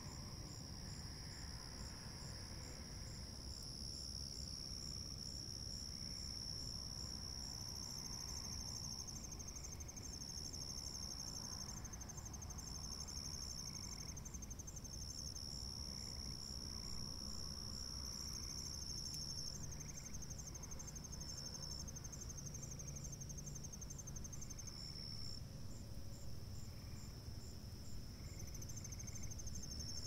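Night insect chorus: crickets and other insects trilling steadily at high pitch, one of them calling in a fast, even pulse. A low, steady rumble runs underneath.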